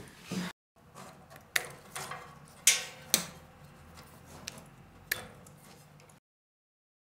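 Wire connectors on a school bus heater's wiring being handled and pulled apart: a few sharp plastic clicks and light rattles, the loudest about a third of the way in.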